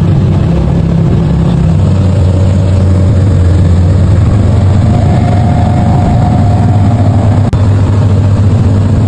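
Twin Suzuki outboard motors running steadily at speed, a loud continuous engine drone.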